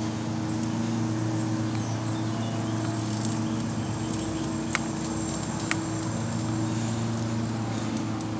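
Lawn mower engine running with a steady droning hum, with two sharp clicks about a second apart near the middle.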